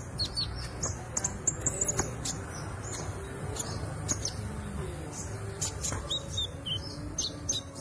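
Konin ijoan songbird chirping: many short, sharp, high-pitched chirps and quick whistled sweeps in irregular runs, as the young bird practises its song.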